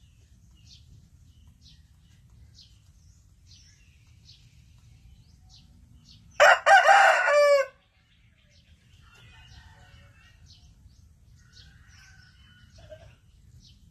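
A rooster crows once, a single crow of a little over a second about halfway through, its pitch dropping at the end. Small birds chirp faintly throughout.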